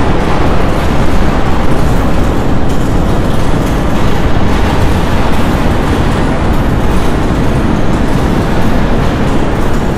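Heavy storm surf breaking and washing onto a shingle beach, with wind: a loud, steady rushing noise, heaviest in the low end.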